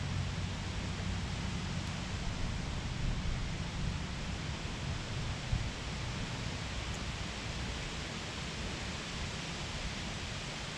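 Steady, even rushing noise of the riverside outdoors, with one small knock about five and a half seconds in.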